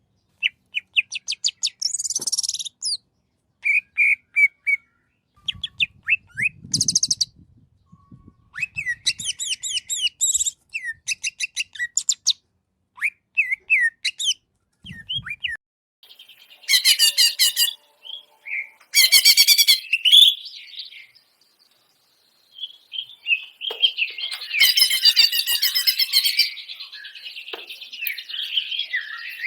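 Green leafbird (cucak ijo) singing a long varied song of quick chirps, whistled glides and dense buzzy trills, broken by short pauses.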